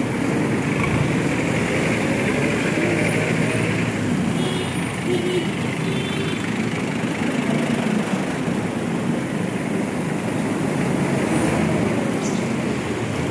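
Busy road traffic passing close by: motorcycles, vans, a jeepney and trucks running in a steady wash of engine and tyre noise, with a few short beeps about five seconds in.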